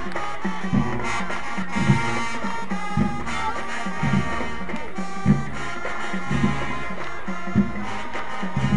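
Marching band playing: sustained brass chords over heavy, repeated bass drum hits.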